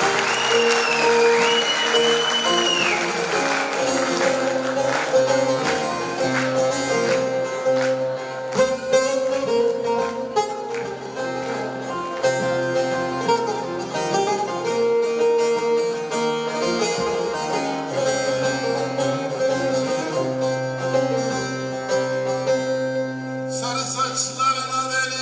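A bağlama (Turkish long-necked saz) playing an instrumental passage: a run of quick plucked notes over a steady drone. A whistle rises and falls in the first few seconds.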